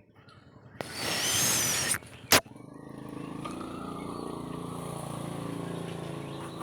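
A loud rushing noise lasting about a second, a sharp click, then a small engine running steadily at an even, slightly wavering pitch.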